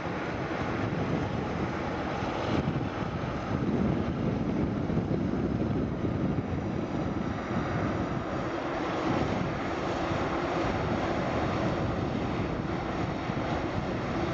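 Boeing 747-8F freighter's four General Electric GEnx jet engines, a steady, continuous noise.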